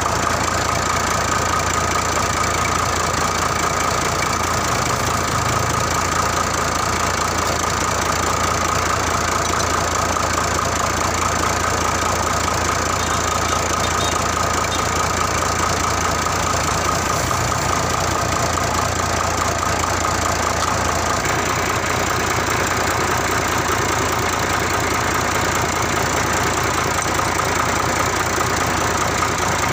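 Mitsubishi Fuso truck's diesel engine idling steadily while its injector nozzles are checked one at a time. The mechanic suspects a faulty nozzle behind white exhaust smoke. The engine's note shifts slightly about two-thirds of the way through.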